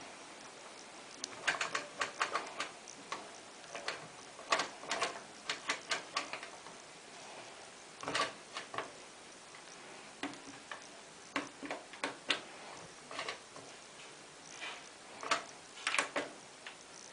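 Clicking from the Beko WM5140 washing machine's controls as the programme dial and option buttons are worked: irregular sharp clicks, some in quick runs of several.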